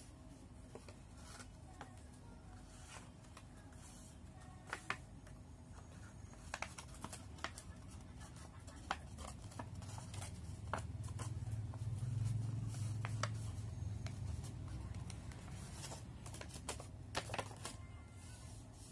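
Origami paper being handled, folded and creased by hand: scattered light crinkles and clicks. A low hum swells and fades in the middle.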